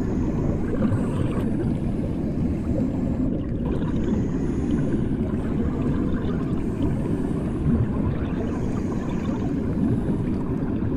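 Bathwater heard from under the surface: a steady, muffled low rumble and gurgle of water, as heard with the ears or microphone submerged in a bathtub.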